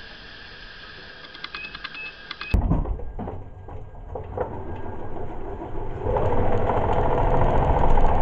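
Drivetrain of a Miles electric truck with a homemade magnetic torque converter (magnet rotor, aluminium disc and planetary gearbox) running as the truck drives. A low rumble with a few clunks starts suddenly about two and a half seconds in. About six seconds in, a mechanical whine sets in and grows louder.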